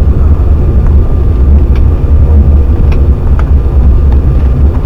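Cabin noise inside an Embraer E195 jet rolling on the ground after landing: a loud, steady low rumble with a few faint clicks.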